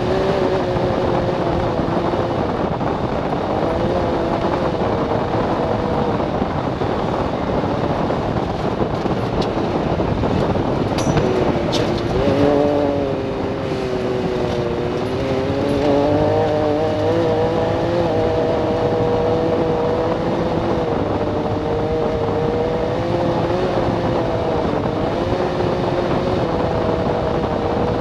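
Can-Am Maverick X3 DS side-by-side's turbocharged Rotax three-cylinder engine running hard through a Yoshimura exhaust with the catalytic converter deleted, over a steady rush of road noise. About twelve seconds in the engine note drops as it slows, then rises again as it accelerates back up to speed.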